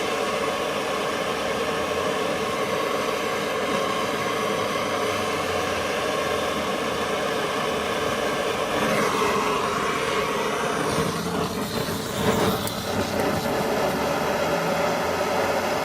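Handheld butane/propane blowtorch burning steadily as it heats a seized brake caliper bleed screw to free it. The flame's sound shifts about nine seconds in and wavers briefly around twelve seconds.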